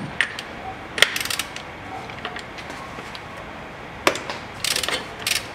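A 24 mm extended socket on a steel extension bar clinking against the gearbox fill plug, with two short runs of rapid ratchet clicking, about a second in and again near the end.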